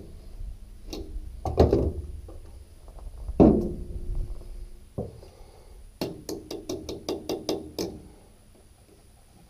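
Hand tools knocking on the steel parts of a rotary cutter's hydraulic lift cylinder and deck: two heavy metallic clanks that ring briefly, a sharper knock, then a quick run of about eight metallic clicks, roughly four or five a second.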